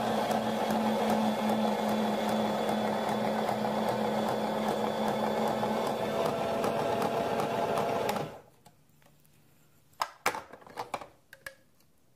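Cuisinart Express electric slicer-spiralizer motor running steadily under load as zucchini is pushed through the ribbon-slicing cone; it stops abruptly about eight seconds in. A few sharp clicks follow near the end.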